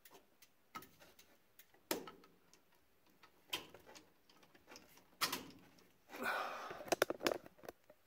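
Faint clicking of a 1969 Camaro's hazard flasher relay, with a few louder knocks and a rustling handling noise carrying several clicks about six to seven and a half seconds in.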